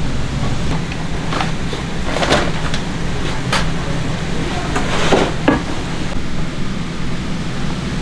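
Bakery kitchen ambience: a steady low machine hum with a few short knocks and clatters, about five scattered through.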